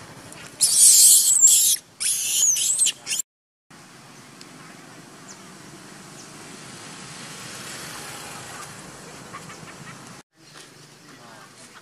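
Macaque screaming: two loud, harsh shrieks, each about a second long, in the first three seconds.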